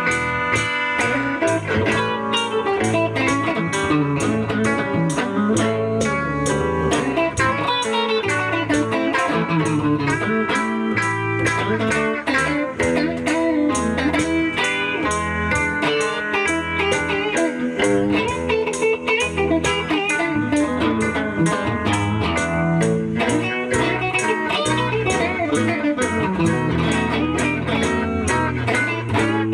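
Live blues played on guitars with no singing: a lead guitar line over a steady beat of about two pulses a second.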